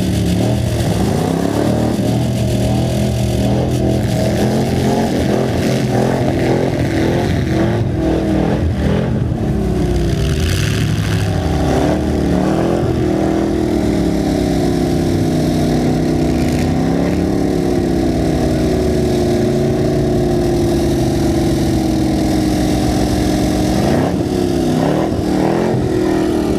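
Several demolition derby cars' engines running and revving hard at once, their pitch rising and falling, with scattered metal clatter.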